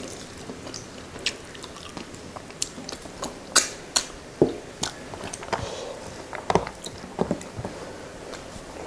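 Close-miked eating sounds of rice and dal eaten by hand: wet chewing with many short, sharp lip smacks and clicks, loudest a few seconds in.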